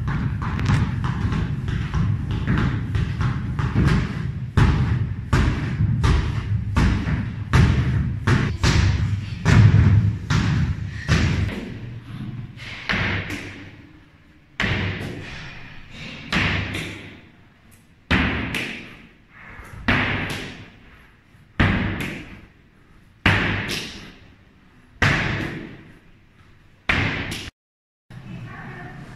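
Heavy battle ropes slapping the floor mat in a rapid, continuous series of dull hits. Then a thrown medicine ball striking hard about once every 1.7 seconds, each impact ringing on in a large room.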